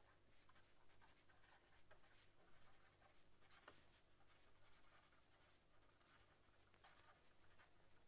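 Very faint scratching of a pen writing on paper, in short irregular strokes.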